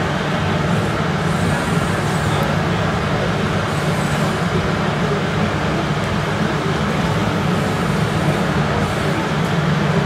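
Steady engine-like drone of radio-controlled model construction machines running, over the background noise of an indoor hall.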